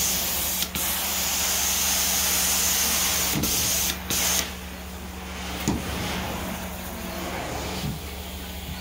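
Carpet steam-cleaning (hot-water extraction) wand spraying and sucking water through the carpet: a loud steady hiss over the machine's low steady hum. About four seconds in, the hiss drops away, leaving a quieter suction noise and the hum.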